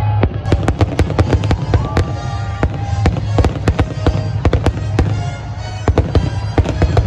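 Fireworks display near its finale: a dense run of sharp bangs and crackling bursts, several a second, with music playing underneath.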